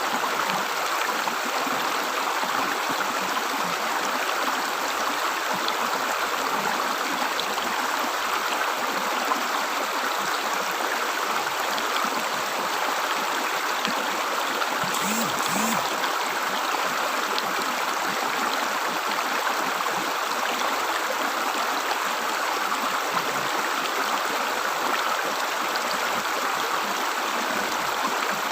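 River water gurgling and running steadily, an even rush of flowing water.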